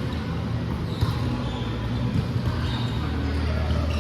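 A volleyball bouncing on a hard gym floor, with the ambient noise of a large hall.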